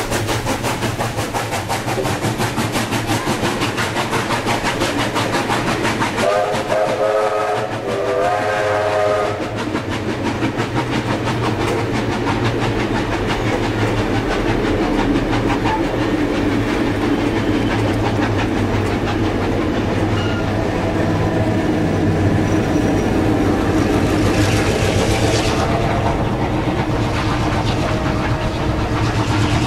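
Railway carriage wheels clicking rapidly over the rail joints as the train passes close by, then a train whistle sounding a chord of several notes for about three seconds. After that the carriages roll past with the steady hum of the trailing 422-class diesel locomotive's engine, growing a little louder near the end as it approaches.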